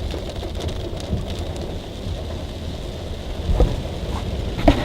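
Small car driving through floodwater, heard from inside the cabin: a steady rush of water with a low rumble, and two heavy thumps near the end.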